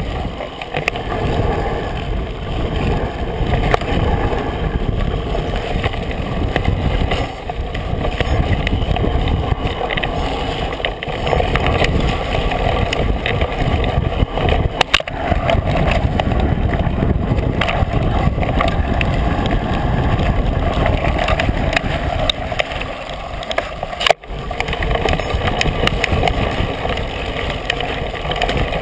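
Mountain bike riding a bumpy dirt trail, heard from a camera mounted on the bike: steady rumble of tyre and wind noise with frequent rattles and knocks from the rough ground, and one sharp knock about 24 seconds in.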